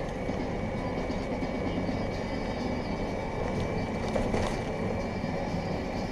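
Steady engine and road noise inside a semi truck's cab at highway speed, with a faint, high, steady whine running through it.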